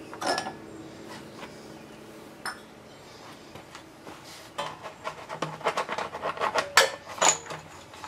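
Clinks and clicks of small metal parts and the plastic engine cover of a walk-behind mower engine being handled as the top bolt and its spacers come out and the cover is lifted, a few isolated clinks at first, then a busy run of clatter from about halfway.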